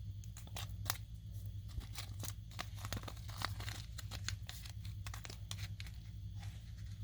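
Small plastic parts and packaging being handled: scattered light clicks, ticks and crinkles, with a steady low hum underneath.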